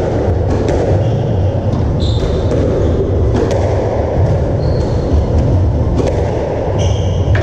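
Squash rally: the ball smacks off rackets and the court walls again and again, with brief high squeaks of court shoes on the wooden floor, over a steady low rumble of the hall.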